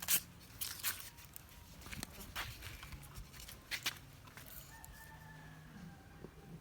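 A few sharp clicks and knocks of handling, the loudest just after the start. From about four and a half seconds in, a faint rooster crows in the background, one drawn-out call that sinks slightly at its end.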